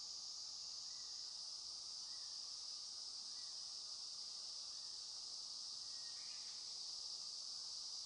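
A steady high-pitched hiss, with a few faint short chirps scattered through it.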